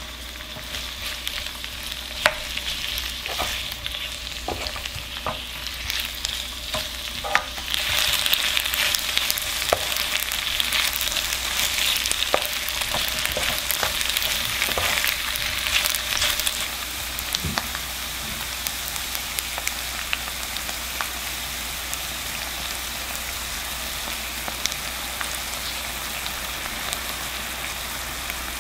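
Rice cakes and minced garlic frying in oil in a nonstick pan: a steady sizzle, with a wooden spoon knocking and scraping against the pan as they are stirred through the first half, then sizzling alone.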